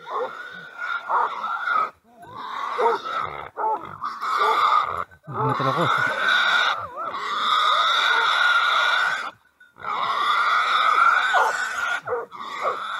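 Wild boar squealing loudly in long, harsh screams, broken by short gaps, as tracking dogs hold it by force; lower growling sounds come in about five seconds in.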